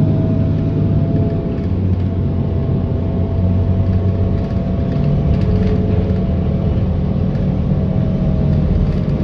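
A city bus driving along, heard from inside the cabin: a steady low rumble from the engine and road, with a faint steady whine over it.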